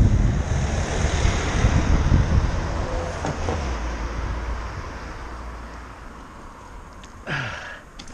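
Wind rushing over the camera microphone, with road noise, fading steadily as the bicycle slows almost to a stop. A short scuffing sound about seven seconds in.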